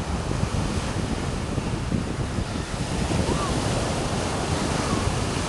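Ocean surf breaking and washing up a sandy beach, a steady rushing hiss that swells a little partway through, with gusting wind buffeting the microphone as a low uneven rumble.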